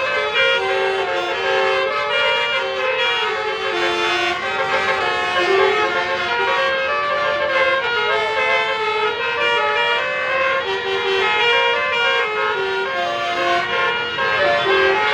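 Multi-tone 'telolet basuri' bus horn playing a melody, its notes stepping quickly from one pitch to the next without a break.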